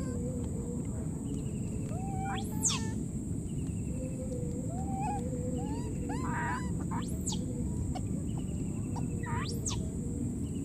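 Scattered short wild animal calls, chirps and three quick rising whistles, over a steady high whine and a constant low rumble.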